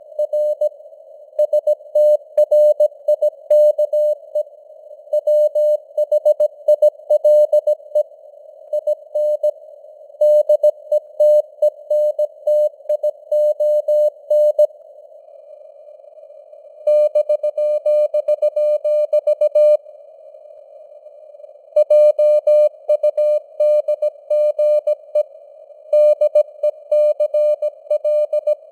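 Morse code sent at 17 words per minute: a single mid-pitched tone keyed on and off in dots and dashes over a faint hiss of simulated radio noise. The sending stops twice for about two seconds near the middle.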